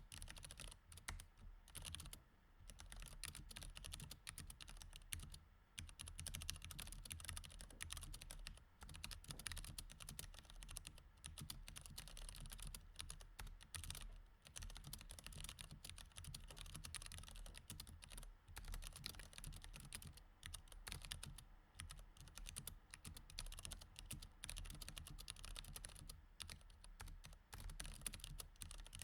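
Fast, continuous typing on a mechanical keyboard with Cherry MX Red switches: a dense run of key clicks and clacks with short breaks every few seconds.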